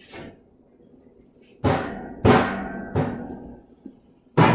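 Hammer blows on hot steel over an anvil while forging a sword blade: four hard strikes, each ringing briefly, the first three about two-thirds of a second apart and the last near the end.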